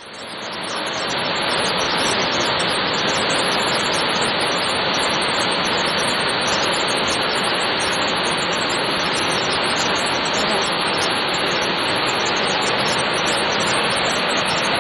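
Haew Narok waterfall: heavy falling water making a steady, even rush of noise that fades in over the first second or so.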